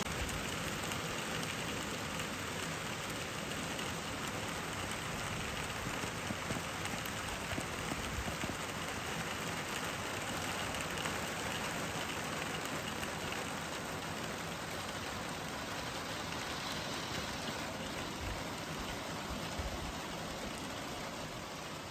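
Steady rain falling, heard from under a golf cart's roof.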